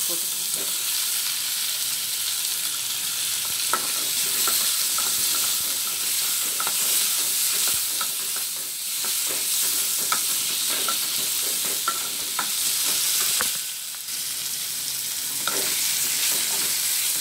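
Chopped tomatoes, onions and curry leaves sizzling in hot oil in a metal kadai, with a plastic spatula scraping and knocking against the pan as they are stirred. The sizzle drops briefly about three-quarters through.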